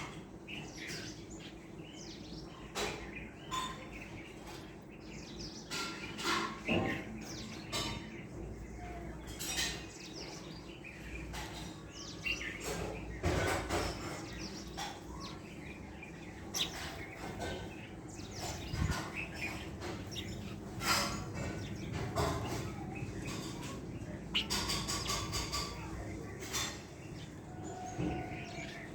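Wild birds chirping and calling: many short, sharp calls and a few quick trills, one after another, over a faint steady hum.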